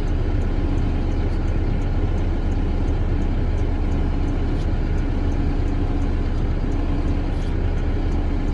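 Cat 420 backhoe loader's diesel engine running steadily while it slowly tows a 12-inch wood chipper on a chain.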